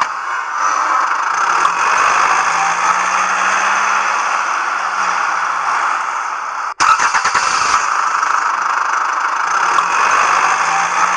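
Van engine running as the van drives, with a steady rushing noise and an engine note that slowly rises and falls. About seven seconds in the sound cuts out for an instant, followed by about a second of crackling.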